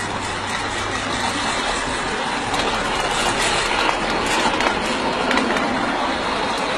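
Small coal-fired live steam locomotive running along its track under steam, a steady noisy hiss and rumble with faint ticks through it.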